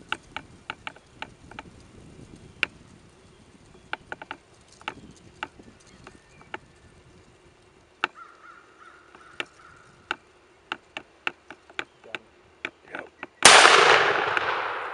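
A single shotgun blast about thirteen and a half seconds in, loud and sudden, its echo dying away slowly: the shot that kills a strutting wild turkey gobbler. Before it, scattered sharp ticks and clicks.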